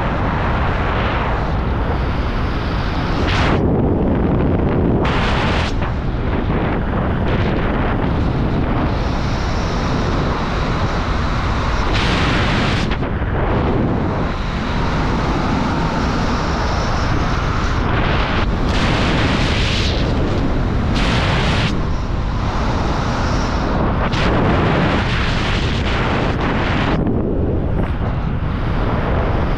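Wind rushing over the microphone of a skydiver's camera during descent under an open parachute canopy: a loud, steady low rumble, with the hiss above it swelling and dropping away every few seconds.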